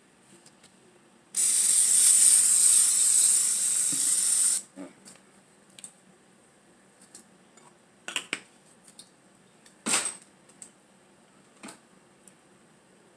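Aerosol cooking-oil spray can sprayed in one continuous hiss of about three seconds, starting about a second in. A few short light knocks and clicks follow later.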